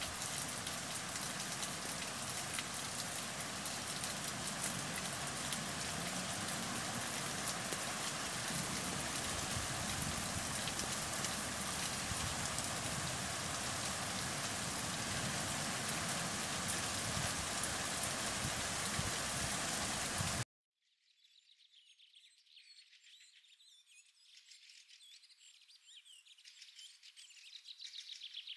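Steady rain falling, a dense even hiss that cuts off abruptly about twenty seconds in. Then faint chirping of small birds, growing louder near the end.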